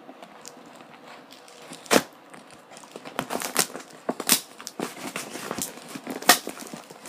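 Packaging being opened by hand: irregular crinkling, tearing and clicking, with one sharp snap about two seconds in and busier handling from about three seconds on.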